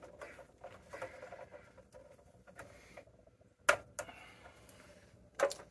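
Faint sound of water filling a new A. O. Smith electric water heater tank, which is about three-quarters full, with air still in it. Two sharp knocks come near the end, about two seconds apart.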